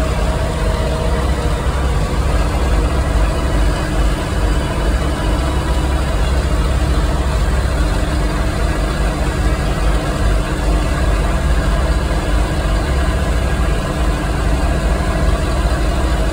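Steyr 8055 tractor's diesel engine running steadily under load while pulling a caravan along the road, heard from the cab as a deep, even rumble.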